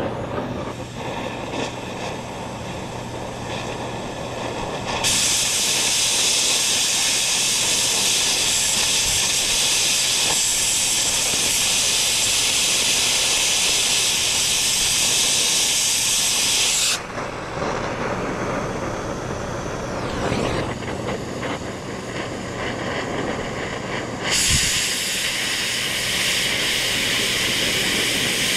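Cutting torch hissing as it cuts out rusted, seized plow bolts. Two long loud hissing blasts, one from about five seconds in lasting about twelve seconds and another starting near the end, with a quieter steady torch noise before and between them.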